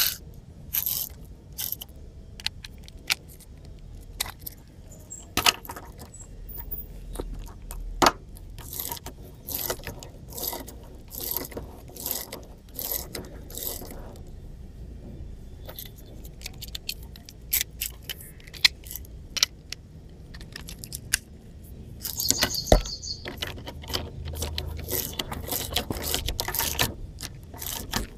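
Homemade ratchet wrench made from a bicycle freewheel: irregular metal clicks and clinks, some in quick runs, from the freewheel's pawls and the tool being worked on a motorcycle axle nut.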